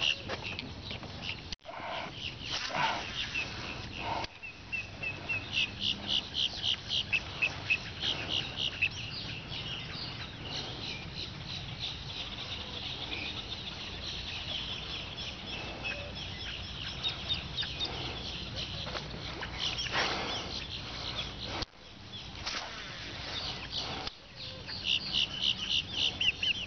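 Birds calling in bouts of quick, high clucking notes, several a second, over a low steady rumble from the outdoors.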